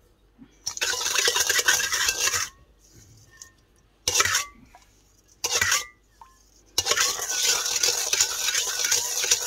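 Metal spoon stirring and scraping around a stainless steel bowl, grinding through a grainy dressing with brief metallic rings. It comes in stretches: a second and a half of stirring, two short strokes, then a longer run of stirring near the end.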